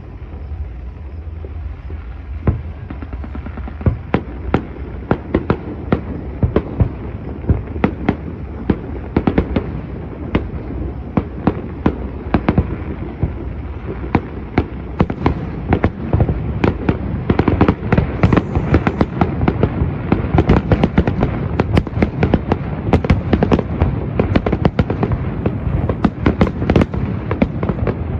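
Fireworks display: a continuous barrage of aerial shell bursts and crackling reports over a steady rumble, the bangs growing denser and louder about halfway through.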